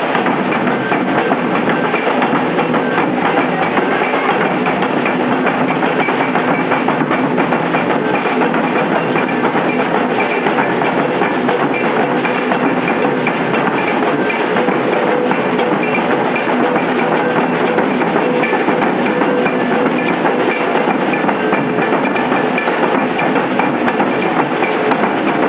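Maracatu percussion group playing a dense, unbroken drum rhythm with struck percussion on top.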